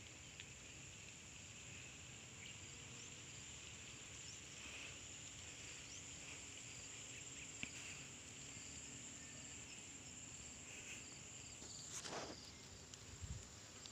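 Faint, steady high-pitched insect chorus over a quiet rural background, with a brief rustle near the end.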